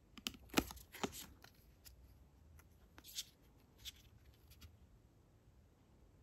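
A stack of matte paper photocards being handled: faint, scattered clicks and short swishes as cards slide across one another and are flipped over in the hands, the sharpest few in the first second or so.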